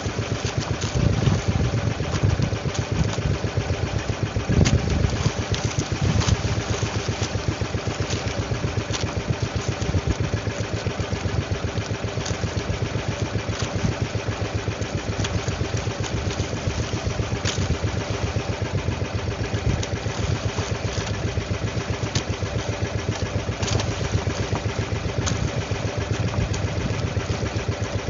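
Small engine of an outrigger fishing boat running steadily at low speed with an even throb.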